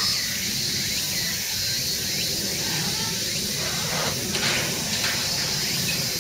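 Steady background hiss of zoo ambience, with a few faint short high sounds about four seconds in.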